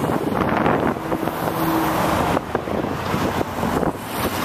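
Wind buffeting the microphone over the rumble of road traffic, a dense, uneven noise with no clear events.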